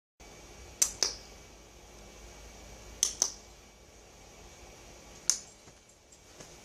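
Sharp, short clicks made by a person, as a sound being imitated back and forth: two close together about a second in, two more about three seconds in, and one a little past five seconds.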